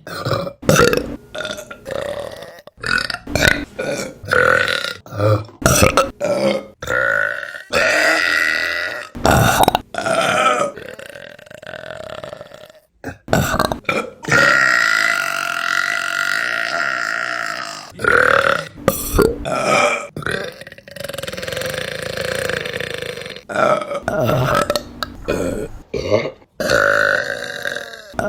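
Women burping, one burp after another in quick succession with abrupt cuts between them. Most are short, and one long drawn-out burp lasts about four seconds near the middle.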